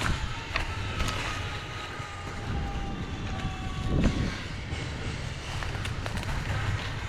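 Steady low rumbling noise with a few sharp clicks and one louder thump about four seconds in.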